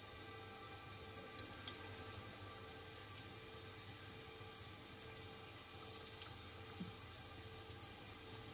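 Faint, scattered crackles and pops of hot cooking oil around battered squash flowers frying in a pan, over a steady low hum.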